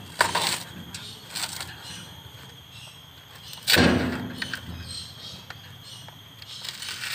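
Sun bear tearing and crunching the fibrous husk of a coconut with its teeth, in three sharp ripping bursts, the loudest about four seconds in.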